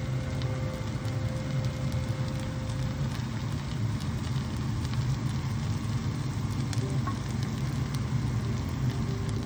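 Banana-leaf-wrapped fish parcel frying in hot oil in a pan: a steady sizzling hiss with faint pops, over a low steady hum.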